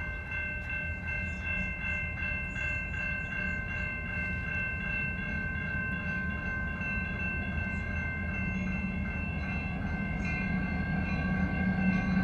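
A railway crossing bell rings steadily over the low rumble of CN freight train A439's approaching diesel locomotive. The rumble grows louder over the last few seconds.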